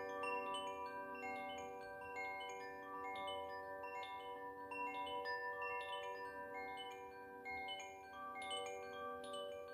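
Koshi chime in its Ignis (fire) tuning, set swaying so that its clapper strikes the tuned rods in an irregular patter of several notes a second. The notes are from the G–B–D–A set, and each rings on and overlaps the next in a shimmering cluster.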